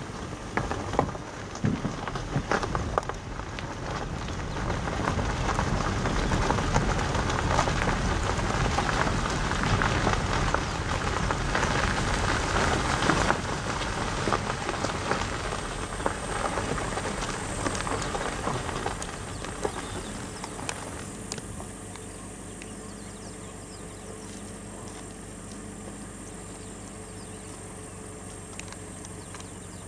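Crackling, gritty rumble of a vehicle rolling slowly over a gravel road. About two-thirds of the way through it drops to a quieter steady low hum, like an engine idling with the vehicle stopped.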